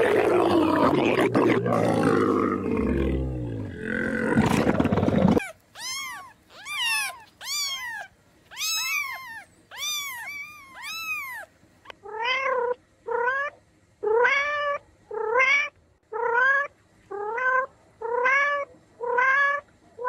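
Animal calls. A dense, noisy stretch lasts about five seconds. Then come short pitched calls that arch up and down, and from about twelve seconds on a steady run of short rising calls, roughly one a second.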